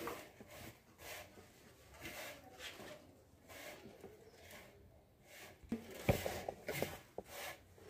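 Hands rubbing and mixing a coarse semolina, sugar and ghee mixture in a metal plate: soft, repeated rustling and scraping of grains against the metal, a little louder near the end.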